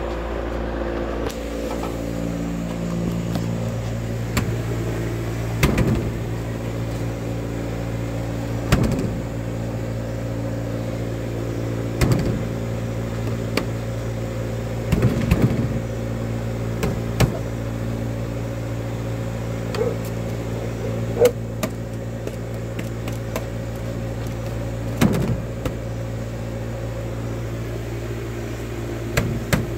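A steady low mechanical hum, with scattered short knocks every few seconds.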